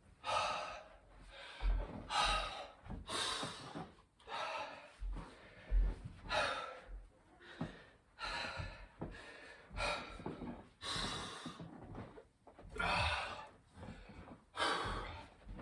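A man breathing hard from a burpee workout, a heavy breath every second or two, with a few dull thuds.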